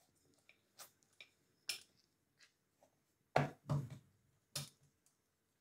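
Scattered soft taps and a few dull knocks of a hand pressing and patting stuffed radish paratha dough flat on a floured wooden rolling board. The two loudest knocks come about three and a half seconds in.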